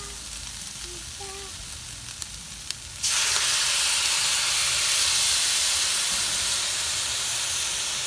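Chicken and lemongrass stir-frying in a hot steel wok, sizzling, with a couple of metal spatula taps on the pan. About three seconds in, the sizzle suddenly jumps to a loud, steady hiss as steam rises off the pan.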